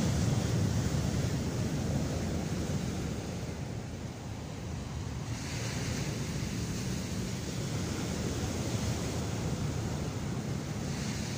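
Sea waves breaking on the shore, a steady wash with a fresh wave crashing in about halfway through and another near the end, with wind buffeting the microphone.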